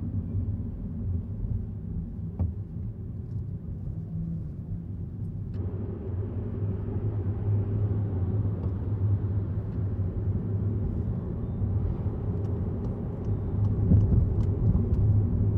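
Steady low rumble of road and tyre noise inside the cabin of a Volkswagen e-Golf electric car driving along. The noise grows fuller about five seconds in, and a few faint clicks come near the end.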